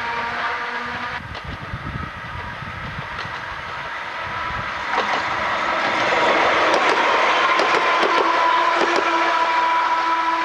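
Vintage electric railcars of the Hokuriku Railroad running past: wheels clicking over the rail joints with a running rumble. About halfway through it grows louder and a steady whine, typical of old traction motors and gears, rises above it.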